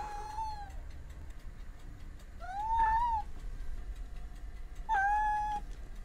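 Scottish Fold cat meowing three times, about two and a half seconds apart; the middle meow rises and then falls in pitch. A low rumble runs underneath.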